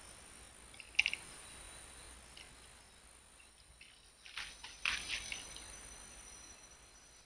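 Quiet outdoor ambience with a steady high-pitched insect drone, broken by a few short clicks and rustles about a second in and again around four to five seconds in.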